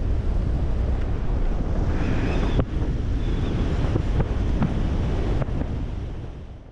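Wind buffeting the microphone: a loud, steady low rumble with a few sharp knocks, fading out near the end.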